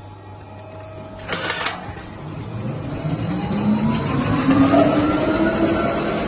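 CNC lathe spindle and chuck spinning up, a whine rising in pitch for about three seconds and then holding steady, after a steady electrical hum. A short hiss comes about a second in.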